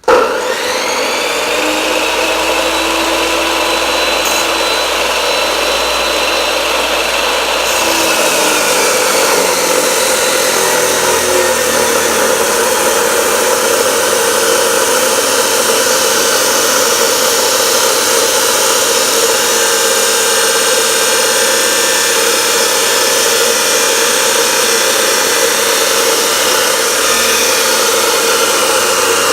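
A power tool starts abruptly and runs continuously and loud, its pitch sagging a little over the first few seconds before holding steady.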